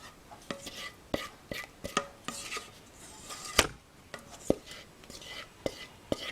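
Kitchen utensils and dishes clinking and knocking: a string of irregular taps and clinks, some ringing briefly, the loudest about three and a half seconds in.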